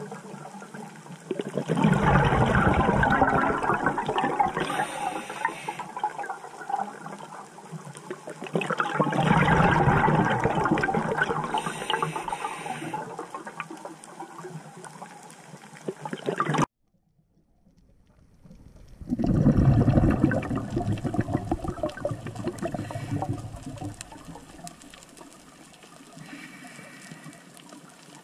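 Scuba regulator exhaust bubbles from the diver holding the camera, a rushing, gurgling burst with each breath out, three times about seven seconds apart. The sound drops out completely for about two seconds before the last burst.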